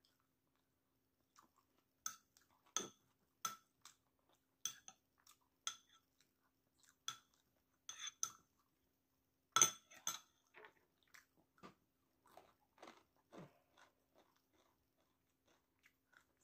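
Close-miked chewing of kwek kwek, battered quail eggs: a run of short crunching clicks about one to two a second, loudest about ten seconds in, then softer.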